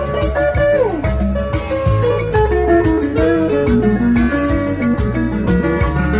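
Instrumental passage of a song: a guitar plays the melody over bass and a steady beat, with a quick downward slide in the melody about a second in.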